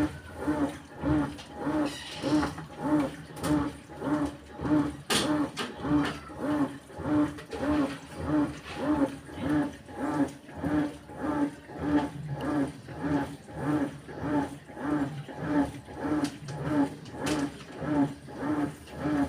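Whirlpool 8MWTW224WJM top-load washing machine agitating in its wash cycle: the motor hum swells and drops in an even rhythm, just under twice a second, as the wash action turns one way and then the other.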